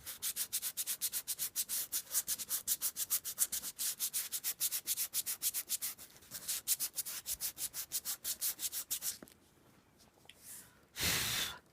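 320-grit sandpaper rubbed back and forth over a paper book end-sheet, sanding off dried glue residue in quick, even strokes of about five a second that stop about nine seconds in. A single short scuff follows near the end.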